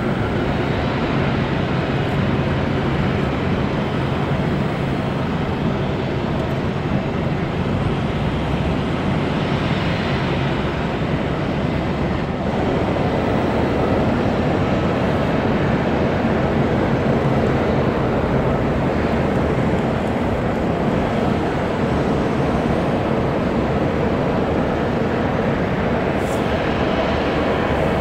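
Jet engine noise at an airport: an Airbus A330-300's Rolls-Royce Trent 700 turbofans running steadily at taxi power, a constant noise with a low steady hum underneath.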